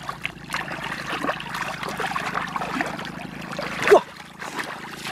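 Hands sloshing and groping through shallow muddy water, with irregular small splashes and squelches and one louder, sharper splash about four seconds in.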